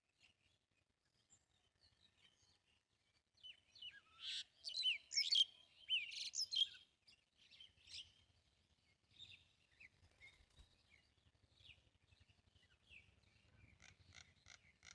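Small songbirds chirping, a loud cluster of quick down-slurred chirps a few seconds in, then fainter scattered chirps and a quick run of them near the end.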